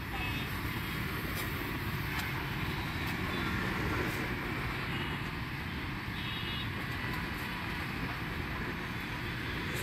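Roadside traffic noise: a steady rumble of passing vehicles, with a few faint clicks.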